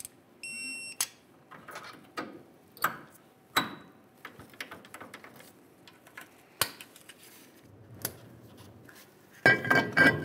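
Scattered clicks and clanks of hand tools and metal parts on a truck's rear axle, with a short electronic beep about half a second in. In the last second, a louder scraping as the new rear brake rotor is turned by hand, dragging on parking brake shoes adjusted too tight.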